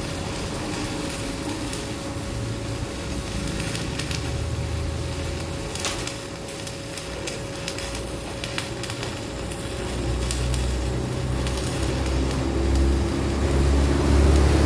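Stick welding with a stainless-steel electrode, the arc crackling steadily as weld is built up on a bearing seat of a Fuller transmission part. A low rumble grows louder over the last few seconds.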